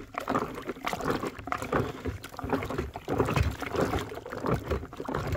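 Wooden stick stirring black walnuts in a five-gallon plastic bucket of water: repeated sloshing and churning surges with short knocks. This is the float-test stage, where bad nuts rise to the top.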